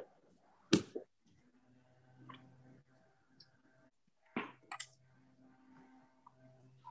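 A pointed wooden tool scoring the edge of a soft clay slab on a board: faint scratching with a few sharp clicks, the loudest about a second in and again past the middle. A faint low hum comes and goes.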